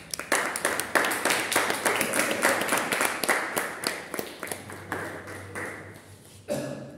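Audience applauding, many hands clapping at once; it starts just after the beginning and dies away about six and a half seconds in.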